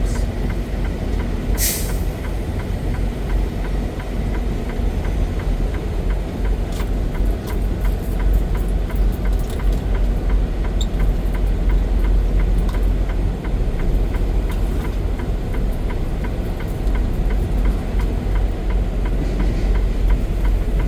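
Semi-truck diesel engine running steadily, heard from inside the cab as a low rumble. A short hiss comes about two seconds in.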